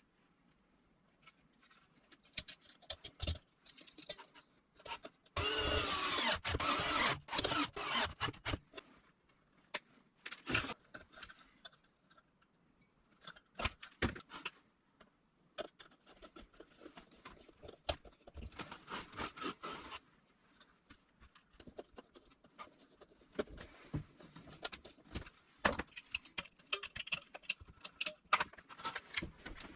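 Workshop handling sounds: scattered clicks, knocks and rattles. About five seconds in, a whirring mechanism runs for about three seconds with a pitch that shifts, and a shorter rasping run comes later.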